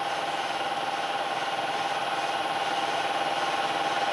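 A milling machine's 2-inch Sandvik indexable-insert face mill taking a steady cut across a flat metal bar held in a vise: an even cutting hiss with a constant whine, growing slightly louder.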